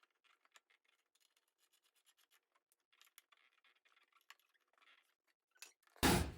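Faint, irregular small clicks and scratches of a tool being handled on the lawnmower's blade bolt, then a sudden louder noise near the end.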